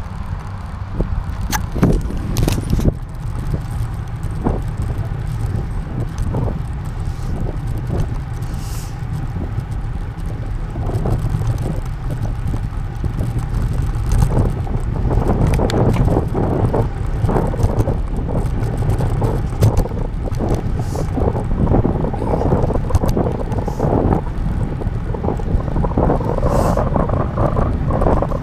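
Bicycle riding over city pavement: a steady wind rumble on the microphone with frequent rattles and knocks from bumps in the road, getting louder from about halfway through.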